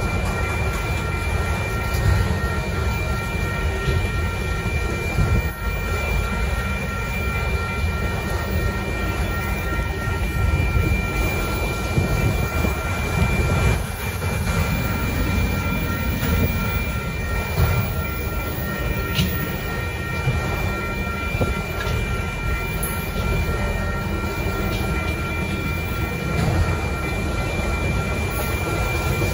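Freight train autorack cars rolling past at a grade crossing: a steady rumble and clatter of steel wheels on the rails.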